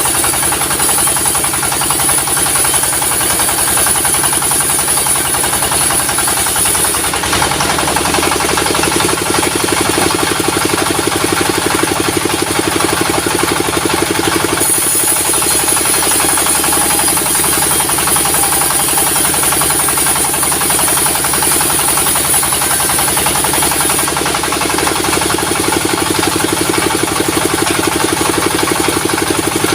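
A sawmill running: a steady, loud engine drive with a fast knocking pulse, and a high whine that grows stronger and eases off every several seconds.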